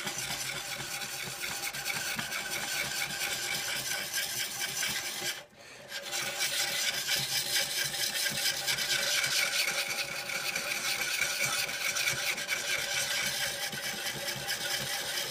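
A coarse, oiled, rod-guided sharpening stone rubbed back and forth across the radiused bevel of a Lie-Nielsen No. 40½ scrub plane iron, making a steady scraping hone sound. This is the first coarse honing of the bevel. The sound breaks off briefly about five and a half seconds in.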